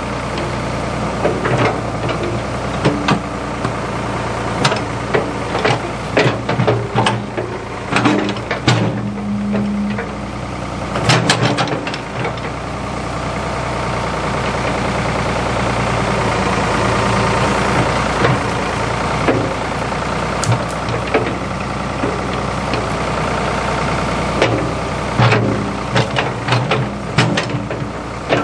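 Ford 555 backhoe's engine running steadily, with frequent sharp knocks and clanks. The engine swells louder for several seconds midway, then eases back.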